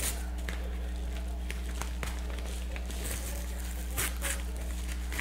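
Packaging crinkling and rustling with scattered small clicks as a parcel is opened by hand, a few louder crackles about three to four seconds in. A steady low hum runs underneath.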